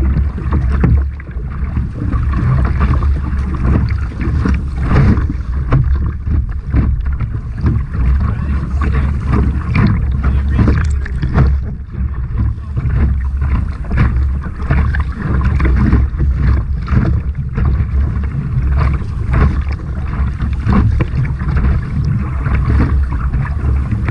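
Sea water splashing and sloshing around a surf kayak as it is paddled through small surf, with many irregular paddle and wave splashes. A constant low rumble of wind and water buffets the microphone.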